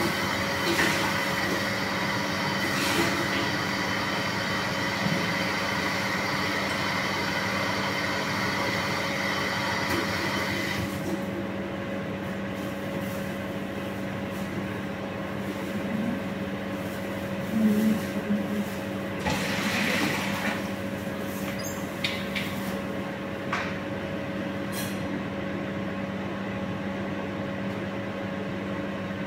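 A steady machine hum with several constant tones and a hiss on top; the hiss drops away about eleven seconds in, leaving the hum. A few brief knocks and rustles come in the second half.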